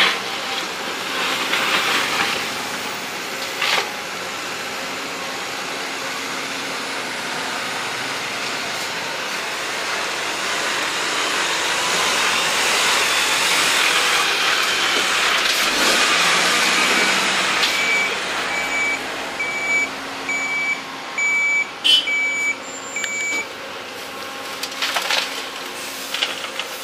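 Heavy diesel machinery running, its noise swelling through the first half. About two-thirds of the way in, a reversing alarm beeps steadily, roughly every two-thirds of a second, for about five seconds. A few sharp knocks are heard among it.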